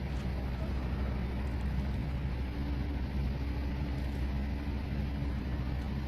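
Diesel engine of heavy earthmoving machinery running steadily, a low, even hum with no breaks.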